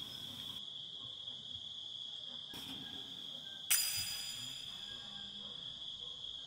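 Crickets chirping steadily, with a sudden bright ringing ding about four seconds in that fades over a second or two.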